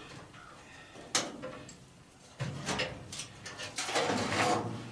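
Furnace parts being worked loose by hand: a sharp metal click about a second in, then a couple of seconds of scraping and rattling as the blower motor comes free.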